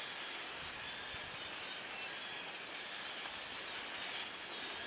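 A huge flock of small blackbirds screaming all at once, thousands of overlapping calls blending into a steady, dense chatter.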